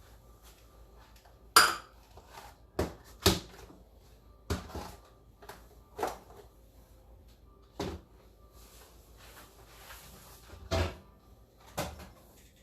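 Kitchen clatter: a series of irregular knocks and clunks as ingredients and containers are handled and set down on a counter, the loudest about one and a half seconds in.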